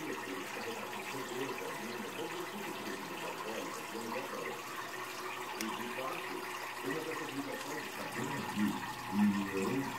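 Aquarium water running and bubbling steadily, the circulation of the tank's water, with a couple of louder low sounds near the end.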